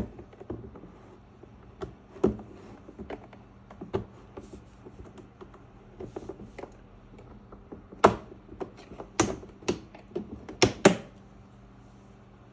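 Irregular clicks and knocks of an SPT SU-9210 humidifier's plastic housing being handled and opened up to reach the fan, coming faster and louder for a few seconds in the second half, over a faint steady low hum.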